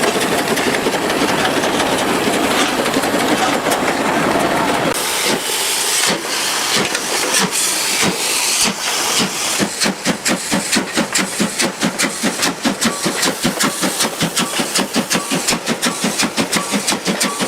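Steam engine venting a steady hiss, then running with regular chuffs that quicken from about one a second to about four a second and hold steady.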